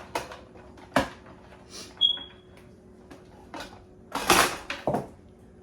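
An old White sewing machine being handled: scattered clicks and knocks of its metal parts, a short ringing ping about two seconds in, then a longer scrape about four seconds in followed by a thump.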